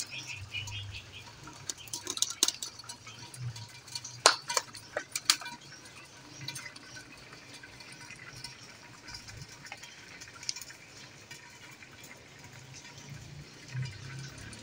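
Steady light rain falling, with a few sharp clicks and ticks about two to five seconds in, the loudest near the middle.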